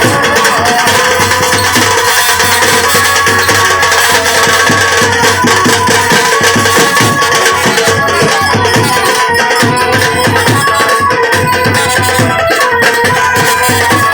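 Folk music: a fast, dense percussion rhythm under a melody of long held notes that step from pitch to pitch.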